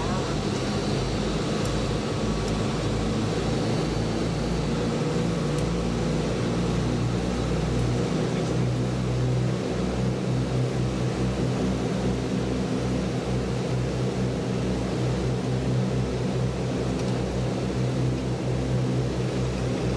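Four Pratt & Whitney R-2800 Double Wasp radial engines of a Douglas DC-6A at takeoff power, heard from the flight deck during the takeoff roll. They make a steady drone, and a regular throbbing beat sets in about halfway through.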